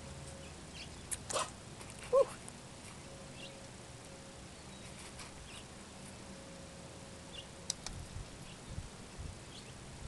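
A single short animal call about two seconds in, the loudest sound here, over a faint steady background with a few light clicks.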